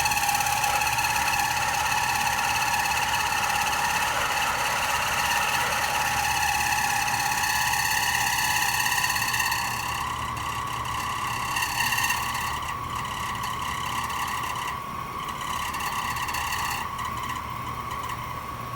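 Air-conditioning unit running with a steady high-pitched whine over a low hum, the whine shifting slightly in pitch. The sound gets quieter about ten seconds in.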